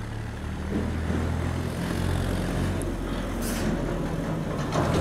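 A motor vehicle's engine running nearby with a steady low hum, over street traffic noise, with a short hiss about three and a half seconds in.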